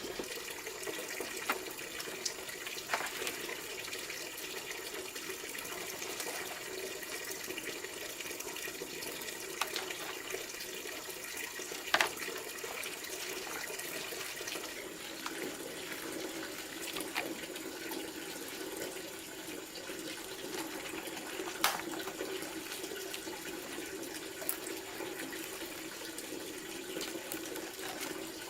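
Steady rush of running water, with a few sharp clicks and knocks over it, the loudest about twelve seconds in.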